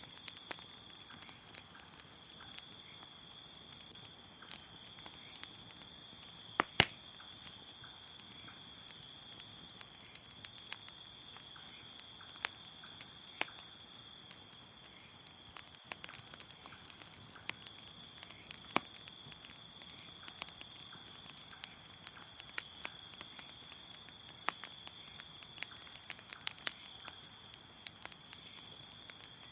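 Crickets chirping in a steady continuous trill, with irregular pops and crackles from a wood fire scattered over it; the sharpest pop comes about seven seconds in.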